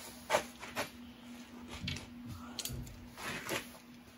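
A handful of separate light metallic clinks and knocks, like hand tools and clamps being picked through, over a steady low hum.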